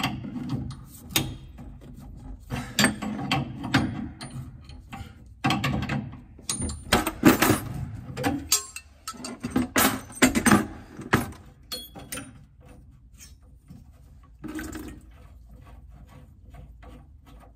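Metal hand tools, water-pump pliers and an adjustable spanner, clicking, knocking and scraping on the brass pipe fittings under a boiler as a fitting is undone. Irregular clicks, busiest for the first ten seconds or so, then fewer and quieter.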